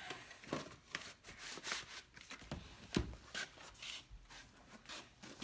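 Tools being handled and moved about in a tool box drawer: light clicks, taps and rustling, with one sharper knock about three seconds in.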